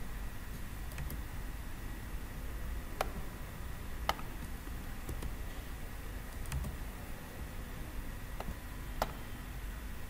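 Computer mouse clicking: about six sharp, separate clicks spread over ten seconds, over a low steady hum of room noise.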